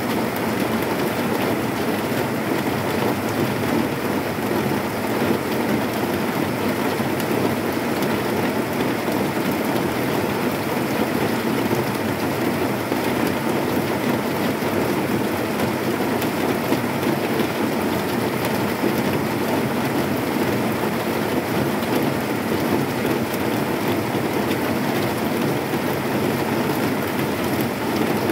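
Heavy rain falling on a corrugated zinc sheet roof: a steady, dense hiss made of countless small drop impacts on the metal, without thunder.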